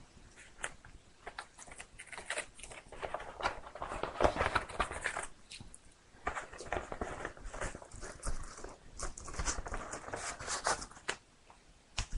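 Packaging being handled and opened: irregular rustling, crinkling and clicking, louder in patches.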